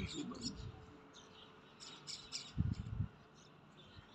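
Small birds chirping repeatedly in short, high notes. There are brief low sounds at the start and again about two and a half seconds in.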